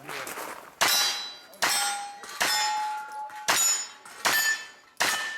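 Steel targets ringing as a pistol-caliber carbine hits them: six sharp strikes about a second apart, each leaving a clear metallic ring that fades.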